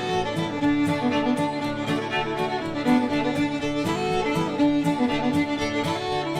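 Instrumental background music led by a fiddle, with a steady beat.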